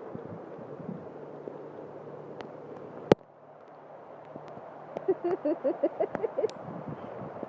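Steady hiss of falling rain. A single sharp click comes about three seconds in, after which it turns quieter. A run of short, quick pitched sounds follows near the end.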